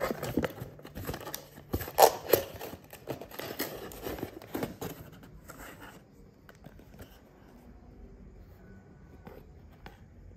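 Packaging of a small cosmetics item handled and opened by hand: a run of crinkles, taps and clicks for about five seconds, loudest about two seconds in, then only faint occasional clicks.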